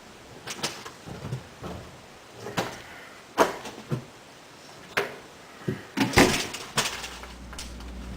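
Household rummaging: a string of separate knocks, clicks and clatters of things being handled and moved, with a denser burst about six seconds in. A steady low hum comes in near the end.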